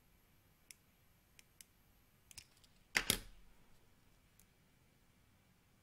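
Faint handling clicks from a plastic lighter and a satin fabric petal being worked by hand, with one louder knock and a brief rustle about three seconds in.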